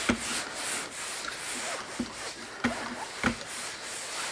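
Rubbing compound being rubbed by hand over a car headlight lens: a steady scrubbing swish, with a few light knocks along the way.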